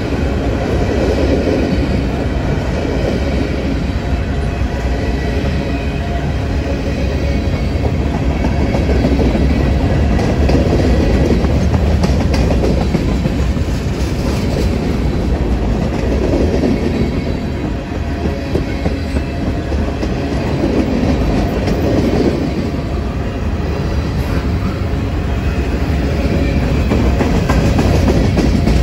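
Freight train covered hopper and tank cars rolling past close by: a steady, loud rumble of steel wheels on the rails, with the clatter of wheels over rail joints.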